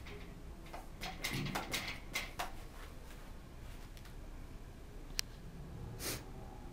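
Scattered knocks, clicks and rustles of people moving about and handling things, with one sharp click about five seconds in and a short rustle about a second later.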